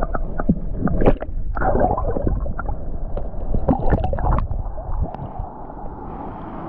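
Close splashing and gurgling of river water, in irregular bursts for the first four or five seconds, then calmer. Wind rumbles on the microphone underneath.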